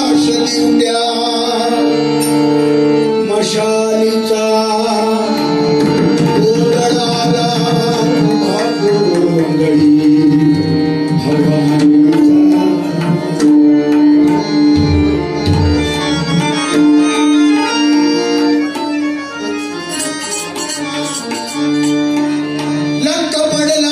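Bhajan accompaniment: a harmonium holding steady drone notes while a hand drum plays, with the deepest drum strokes around the middle.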